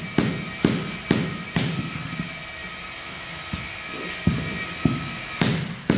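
Hand mallet tapping a large porcelain floor tile down into its mortar bed, sharp strikes about two a second that pause in the middle and start again about four seconds in.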